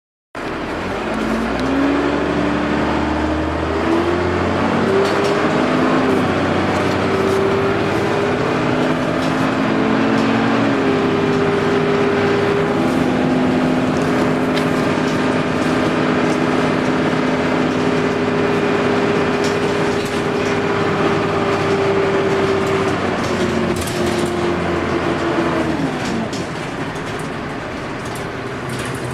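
Dennis Dart SLF single-deck bus pulling away. Its drivetrain whine climbs in pitch in steps through the gears over the first few seconds, holds steady while cruising, then drops away as it slows near the end: a slight "hoover" whine.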